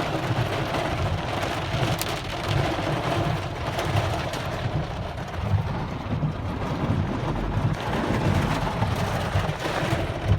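Torrential rain pouring down: a steady, loud rush of heavy rain with a low rumble underneath.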